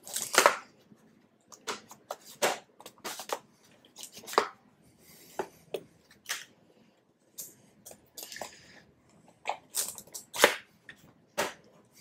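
Plastic case clips of a Cooler Master QuickFire Rapid keyboard clicking and snapping as a card is pried along the seam between the top sheet and the bottom case. The sharp clicks come at irregular intervals, with light scraping between some of them.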